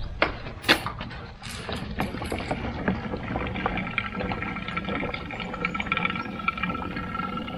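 Gasoline being poured into a lawn mower's fuel tank: a steady pouring hiss that sets in about two seconds in, after a couple of sharp knocks and clicks at the start.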